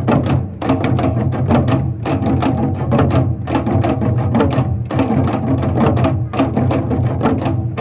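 Korean janggu hourglass drums struck with sticks in fast, dense phrases, with short breaks between phrases, over a steady low backing tone.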